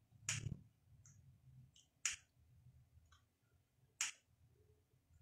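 Three short, sharp clicks about two seconds apart, over a faint low hum.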